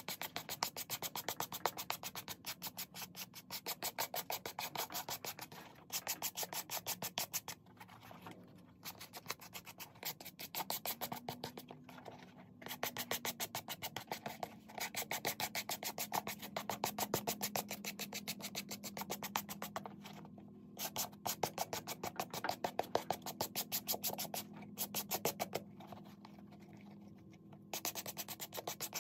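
Stiff-bristled suede brush scrubbed rapidly back and forth over the nap of a suede handbag, a dry scratchy rasp at about five strokes a second. It comes in runs of a few seconds with short pauses between them.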